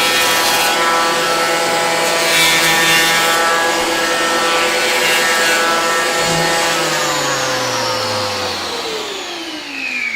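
Festool HL 850 electric hand planer with a Rustic coarse cutterhead running and cutting into wood in rough passes, then switched off, its motor whine sliding down in pitch as it winds down over the last few seconds.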